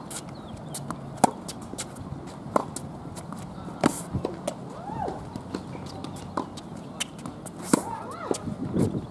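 Tennis rally on an outdoor hard court: a tennis ball struck by rackets and bouncing, a sharp pop every second or so with the louder strokes standing out, with fainter hits from neighbouring courts. A few short rising-and-falling squeals come in the middle and near the end.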